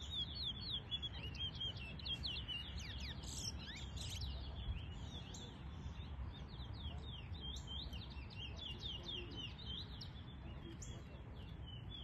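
Towa-towa songbirds singing steady runs of quick, high chirping and twittering notes, over a low background rumble.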